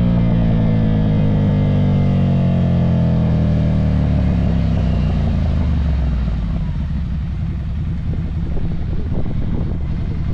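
Ducati Monster motorcycle's V-twin engine, its pitch falling steadily for about six seconds as the revs come down, then running lower and uneven.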